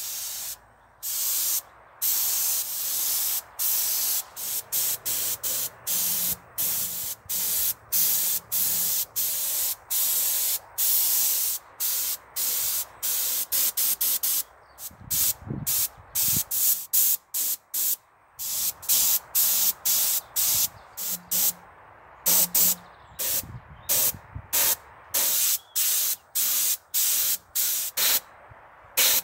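Compressed-air paint spray gun with a gravity-feed cup hissing in many short bursts, cutting in and out as the trigger is pulled and released, with a brief pause in spraying about halfway through.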